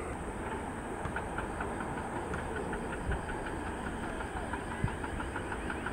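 Steady low rumble of distant jet aircraft across an airport, with a fast run of short high chirps over it from about a second in.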